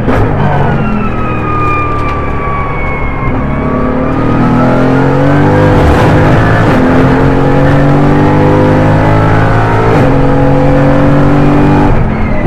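Mercedes-AMG GT4's twin-turbo V8 race engine heard from inside the cockpit: it winds down with a falling whine over the first few seconds, then accelerates hard with upshifts about six and ten seconds in, and a brief break in the engine note near the end.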